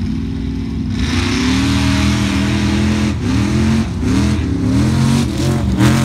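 A mud drag vehicle's engine revving hard as it runs through the mud pit. It pulls harder about a second in, and its pitch climbs and drops several times.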